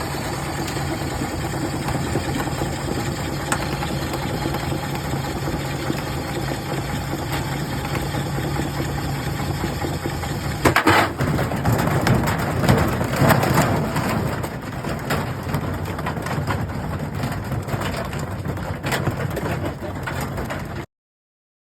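Washing machine motor running in a steady mechanical hum, with a loud stretch of clattering and banging about halfway through; the sound cuts off abruptly near the end.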